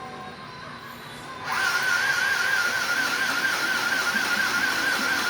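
A mini sewing machine motor starts about a second and a half in and runs steadily: a high motor whine that wavers slightly in pitch over a loud buzzing noise.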